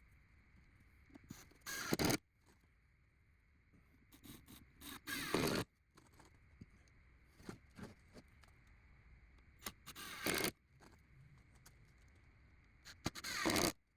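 Cordless power tool running in four short bursts of about half a second to a second each, spread a few seconds apart, as it drills or drives screws into cedar boards.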